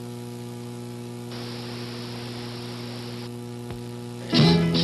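Steady electrical mains hum on an old broadcast recording, with a patch of hiss in the middle. About four seconds in, commercial music starts suddenly and loudly.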